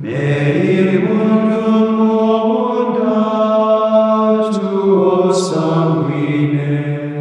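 Small choir of Benedictine monks, men's voices, singing an unaccompanied chant: one long sustained phrase that begins sharply at the start and tapers off near the end.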